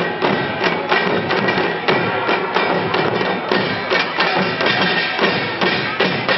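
Janggu, Korean hourglass drums, played together by a group in a fast, even rhythm of about three beats a second, with steady held tones behind the drumming.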